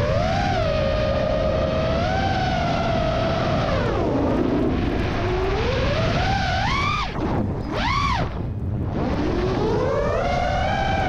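Freestyle FPV quadcopter's brushless motors and propellers whining, the pitch rising and falling with the throttle. The whine sinks low about four seconds in, climbs again, and cuts out briefly twice around the middle as the throttle is chopped, then climbs back near the end. Wind rush runs underneath.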